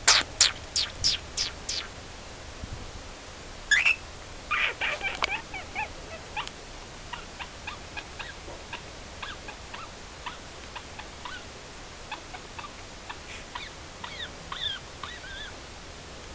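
Pet bird chirping: a quick run of about seven sharp, loud calls at the start, another burst of calls about four seconds in, then a long string of short, softer chirps and clicks.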